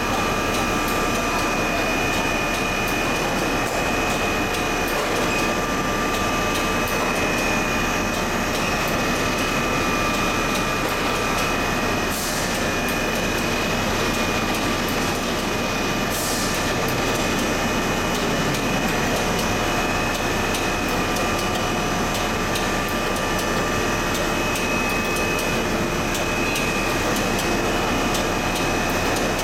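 Twin-screw plastic sheet extrusion line running: a steady, loud machine noise with a high, even whine over it. A short hiss cuts in twice, about twelve and sixteen seconds in.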